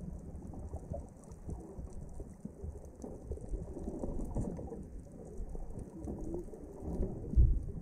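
Muffled underwater noise heard through a submerged camera: low water rumble with steady fine crackling, and a brief low thump near the end.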